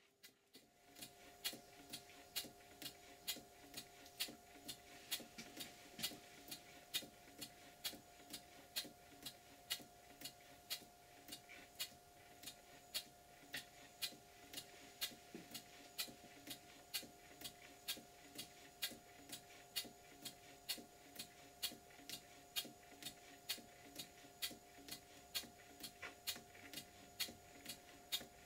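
Stuart Models beam engine running on compressed air, giving a light, very regular click about two and a half times a second. Its running is a bit clunky, which the owner puts down to the valve in the valve chest needing adjustment.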